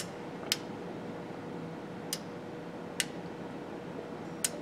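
Relays on an Erhardt & Leimer line tracker board clicking about five times at uneven intervals, each a sharp, short click, as the input voltage on terminal 14 is swung between plus and minus and the relays switch the test light bulbs. A faint steady hum runs underneath.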